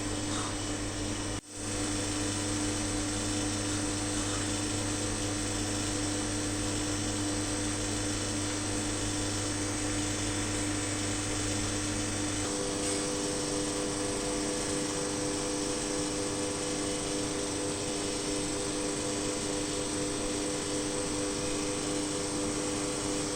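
Steady machine hum with several fixed tones. About a second in, it drops out for a moment, and about halfway through the low hum stops while higher steady tones take over.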